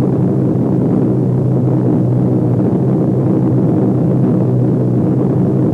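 Piston aircraft engines droning steadily at a constant pitch, with a low rough hum.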